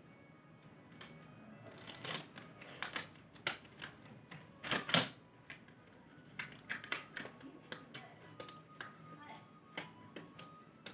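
Irregular clicks and rustles of hands at work as they are cleaned and disposable examination gloves are pulled on, with the loudest cluster about five seconds in. Faint background music underneath.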